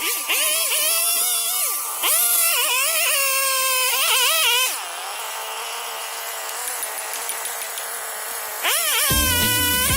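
Chainsaw engine revving up and down in bursts, with a steadier hissing stretch in the middle. Music with a bass beat comes in near the end.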